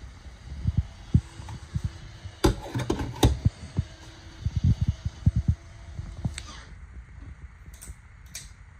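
Irregular low thumps of footsteps and handheld-camera handling, with a cluster of sharp clicks and knocks about two and a half seconds in and a faint steady hum. Near the end come two short sharp clicks as a ceiling fan's pull-chain switch is pulled.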